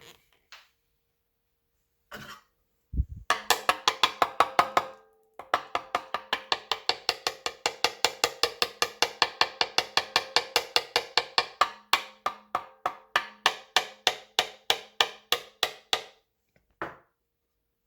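Rapid, even wooden-sounding taps, about five a second, over a faint steady tone; they pause briefly about five seconds in and stop near the end.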